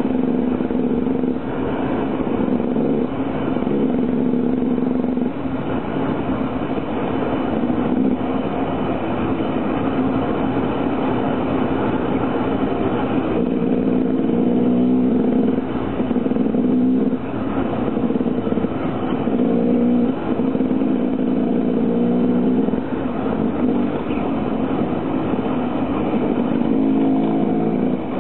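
Enduro motorcycle engine ridden hard off-road, the throttle opened and shut again and again so that the pitch rises and drops every second or two.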